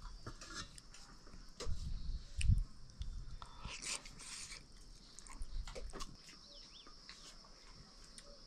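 A few dull low thumps, loudest about two and a half seconds in, and scattered light clicks and knocks, over a steady high chirring of insects.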